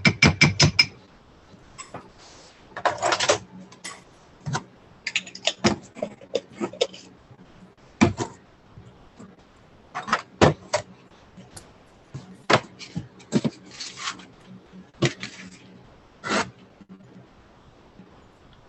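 Kitchen handling sounds: a spoon clicking and knocking against a jar and mug, with a few short scrapes, as salsa is spooned into a mug of raw egg and chips.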